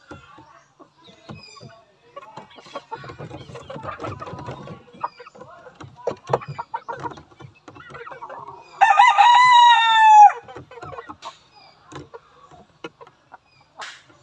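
A gamecock crows once, loud, for about a second and a half, starting about nine seconds in, its pitch sagging slightly at the end. Before it, soft rustling of feathers as the bird is handled.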